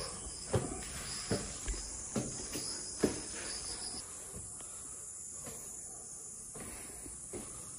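Footsteps on a rock path, about one every two-thirds of a second, stopping about four seconds in, over a steady high chirring of insects.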